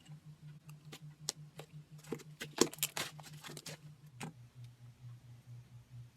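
Slime being handled and squished, giving scattered small clicks and pops, with a cluster of louder crackles between about two and a half and four seconds in. A low pulsing hum runs underneath and drops in pitch about four seconds in.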